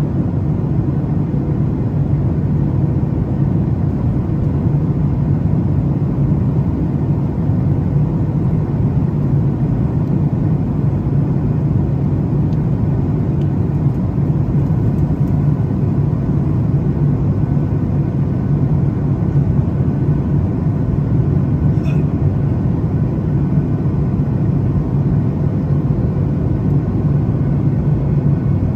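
Steady cabin noise of a jet airliner in cruise flight, heard from a window seat: an even low rumble of engines and rushing air with a faint steady hum above it.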